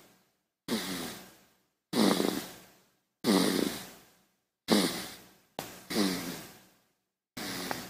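Baby snoring: six short breathy snores with a faint pitched squeak, each starting abruptly and fading away, about one every second or so, with dead silence between them.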